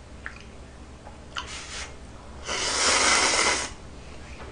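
A person slurping thick Nongshim Neoguri ramyeon noodles. A short airy suck comes about one and a half seconds in, then a louder slurp lasting about a second.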